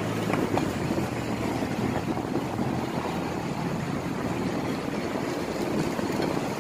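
Steady roadside traffic noise, with a couple of light clicks of serving tongs and spoon about half a second in.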